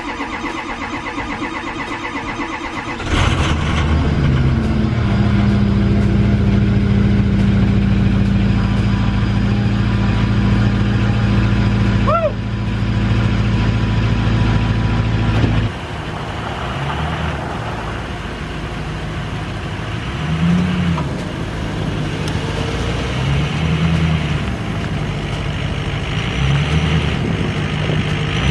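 2005 Ford F-350's 6.0 L Power Stroke V8 diesel cold-starting after sitting two months: it cranks for about three seconds, catches and idles steadily. Later it is revved four times, each rev rising and falling.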